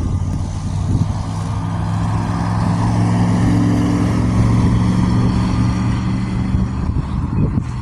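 A road vehicle's engine running close by, its low steady hum and tyre noise growing louder towards the middle and dropping away near the end, as if it drives past.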